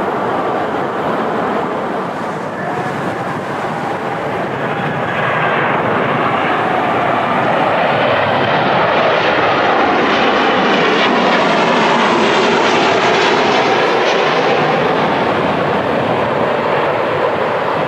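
Boeing 737-800 jet engines passing close on the landing approach: a loud roar that builds to its peak about ten seconds in, with a whine sliding in pitch as the airliner goes by, then eases off.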